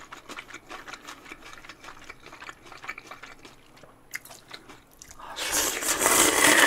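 Close-miked chewing with small wet mouth clicks. Then, about five seconds in, a loud slurp of cold naengmyeon noodles from the broth swells up and cuts off sharply.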